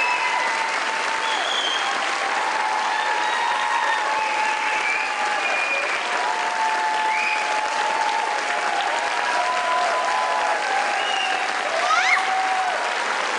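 Audience applauding steadily, with shouts heard over the clapping.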